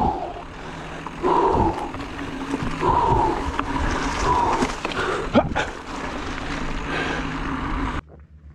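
A mountain biker's heavy, labored breathing while riding: loud gasping breaths about every one and a half seconds, over steady wind and trail noise. The noise drops away suddenly near the end.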